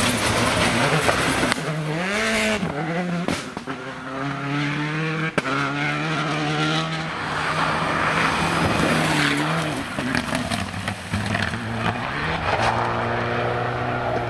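Rally cars on a gravel stage passing at full speed one after another, their engines revving high and dropping with each gear change. There is a single sharp knock about five seconds in.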